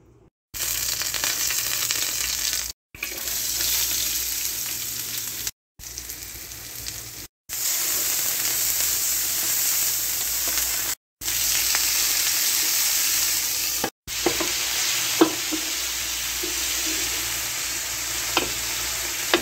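Chopped onion, green chilli and tomato sizzling in hot olive oil in a pan while being stirred with a spatula, a steady frying hiss broken by several abrupt silent gaps where the clips are cut. Two sharp clicks sound in the last few seconds.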